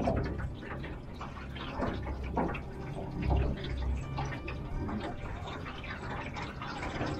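Water splashing and gurgling along the hull of a small aluminum boat as a 36-pound-thrust electric trolling motor pushes it along, with a low steady hum underneath.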